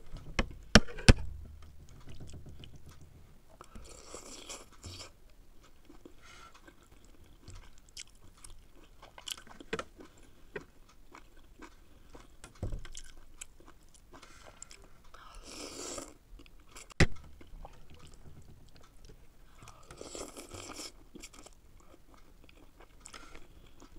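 Close-up eating of chicken noodle soup: steady chewing, three long noisy slurps of noodles, and a few sharp clicks of chopsticks and spoon against the ceramic bowl, the loudest about a second in.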